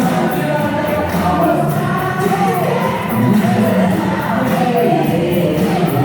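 Loud music with a sung vocal line over a steady beat.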